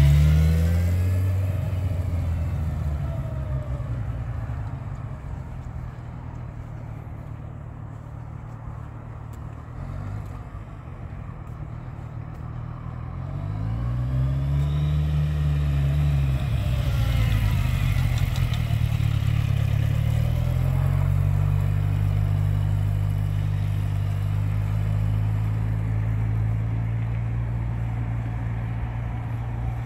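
Kawasaki Ninja 1000cc sport bike's inline-four engine at low speed: loud as it passes close at first, then fading as it rides away. It comes back with a rise and fall in pitch, then holds a steady note near the end.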